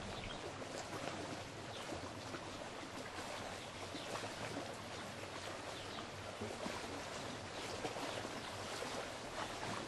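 Small waves lapping at the lake's edge, a steady, fine splashing and trickling of water.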